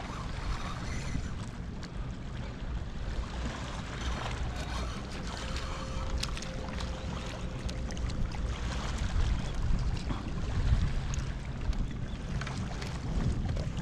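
Wind rumbling on an action-camera microphone on a fishing kayak, with water lapping against the hull and scattered small knocks and clicks. A faint steady hum comes in for a couple of seconds midway.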